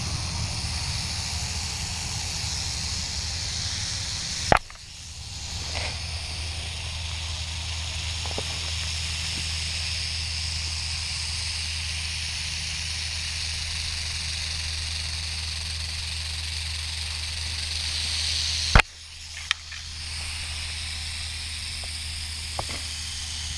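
Western diamondback rattlesnake rattling in a steady high buzz, cut by two sharp knocks about 4.5 and 19 seconds in as the coiled snake strikes the camera; the buzz drops briefly after each knock, then picks up again.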